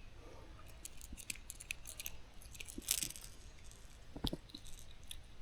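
Faint handling noises from a freshly caught small bass and fishing tackle: scattered small clicks and rustles, a short hiss about three seconds in, and a couple of soft knocks a little after four seconds.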